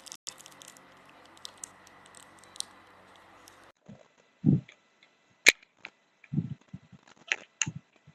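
Small plastic object being handled: faint rustling at first, then a few soft thumps and sharp plastic clicks from about halfway, the loudest a single snap just past the middle.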